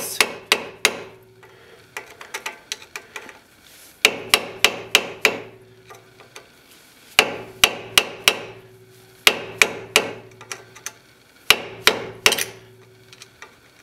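A hammer tapping the handle of a flathead screwdriver set against a front axle nut, in short runs of quick sharp strikes with brief pauses between. The nut's collar is being staked down into the CV shaft to lock it in place.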